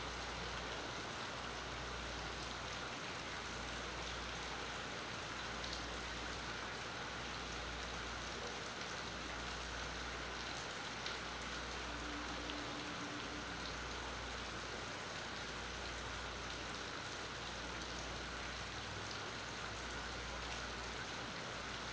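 Steady rain falling onto marina water and docks, an even hiss with a few single drips standing out, picked up by a phone's built-in microphone.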